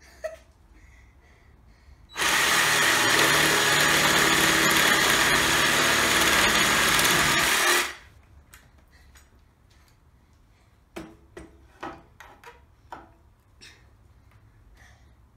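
DeWalt cordless reciprocating saw (Sawzall) running flat out for about five and a half seconds as its blade cuts into a dry log, starting and stopping abruptly. A few light knocks follow later.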